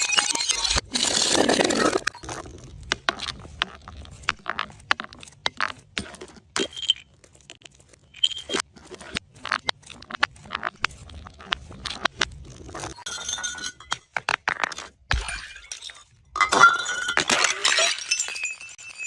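Glass bottles breaking: a crash of shattering glass at the start, then many separate sharp clinks and ticks of glass shards, and another burst of breaking glass with a bright ringing near the end.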